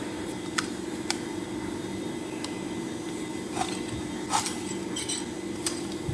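Handheld rotary cable stripper being worked around a thick cable, its blade scoring the insulation, with scattered sharp clicks from the tool. A steady low hum runs underneath.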